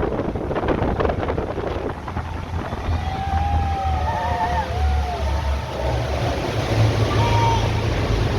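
Tour boat's engine rumbling low and steady under wind buffeting the microphone and splashing water, with a few short high calls rising and falling over it from about three seconds in.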